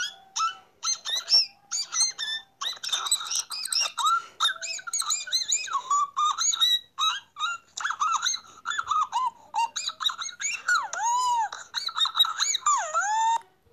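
Great kiskadees (bem-te-vi) calling, played back from a phone voice message: many chirps and arching, rising and falling calls overlap without pause. The calls stop abruptly near the end.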